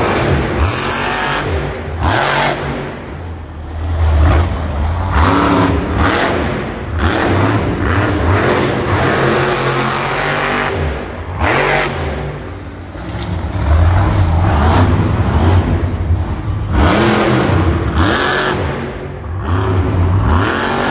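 Alien Invasion monster truck's supercharged V8 engine revving hard, the pitch rising and falling again and again as the truck drives and turns on the dirt, with brief drops in between.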